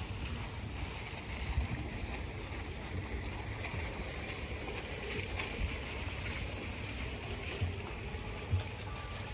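Steady wash of splashing water from a small pond fountain, over a low, uneven rumble of wind on the microphone.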